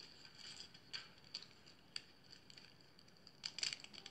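Faint, scattered crisp crackles of fingers pressing into a pile of dry crumbled flakes: single clicks about one and two seconds in and a small cluster near the end.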